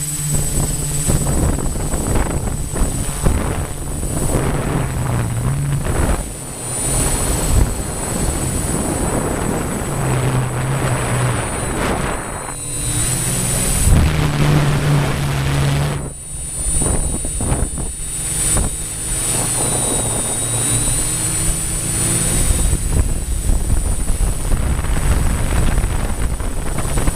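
Hexacopter's six motors and propellers running in flight, their low hum stepping up and down in pitch as the throttle is corrected, over a steady high whine. Strong wind rushes across the microphone in gusts.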